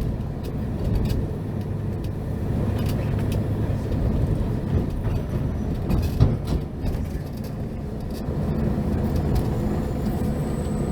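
Steady low rumble of road traffic and bus engines running, with a single brief knock about six seconds in.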